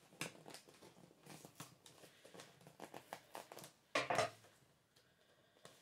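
Hands working at a heavily taped cardboard parcel: a run of small scratches, clicks and crinkles of tape and cardboard, with one louder short rasp about four seconds in.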